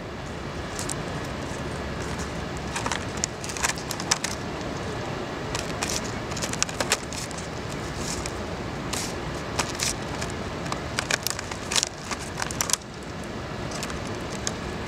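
Australian raven pecking and tugging at a clear plastic lunch box on stone paving: irregular clicks and plastic crackles over a steady outdoor background noise.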